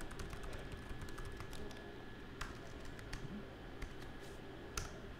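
Typing on a computer keyboard: a quick run of key clicks, thinning after about two seconds to a few separate, louder clicks.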